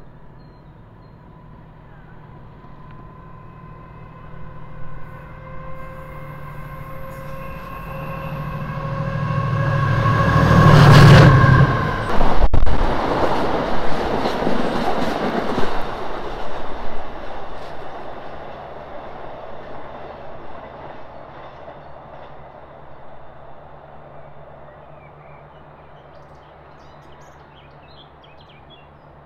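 Colas Class 70 diesel locomotive approaching and passing close beneath, its engine note rising to a loud peak about eleven seconds in. It is followed by the clatter of a long rake of bitumen tank wagons' wheels over the rails, which fades away over the next ten seconds or so.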